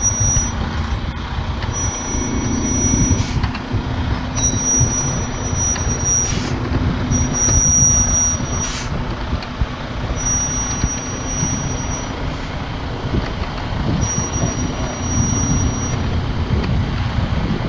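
A semi truck's engine runs steadily as the truck slowly pulls its empty hydraulic boat trailer out from under a launched boat. A thin, high-pitched squeal comes and goes about six times over the rumble.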